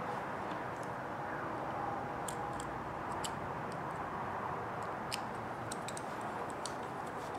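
Scattered small clicks and taps of a hex driver and hard plastic and metal RC axle parts being handled, most of them in the second half, over a steady background hiss.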